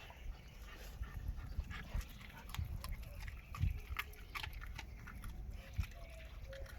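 Dogs chewing frozen raw tilapia: scattered crunching clicks, irregular.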